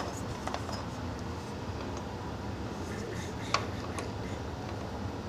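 A metal gooseneck work-light arm being bent and positioned by hand on a surface grinder, with a sharp click about three and a half seconds in and a smaller one just after, over a steady low hum.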